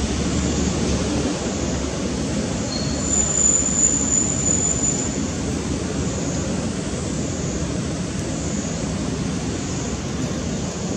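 Steady outdoor background noise, with a thin, high-pitched whine about three seconds in that lasts roughly two seconds.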